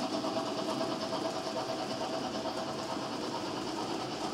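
HO-scale model trains of tank wagons running on the track: a steady whirr of the model locomotives' electric motors over the rattle of small wheels on the rails.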